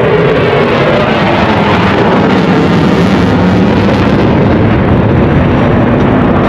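Roar of a Eurofighter Typhoon's twin EJ200 jet engines, loud and steady, as the fighter flies a display manoeuvre.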